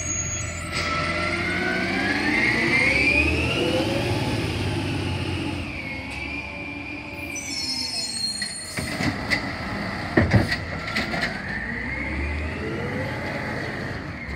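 Automated side-loader garbage truck pulling away, its engine running with a whine that rises in pitch, falls back, and rises again near the end. A few sharp knocks about nine to eleven seconds in.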